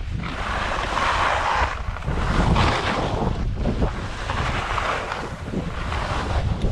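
Wind buffeting the microphone of a camera moving downhill on skis, with the hiss of skis on snow swelling and fading about every second and a half as the skier turns.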